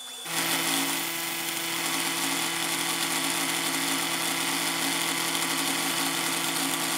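Milling machine cutting a metal workpiece clamped in a vise: a steady, dense cutting noise over a low machine hum. It starts abruptly just after the start and eases off near the end.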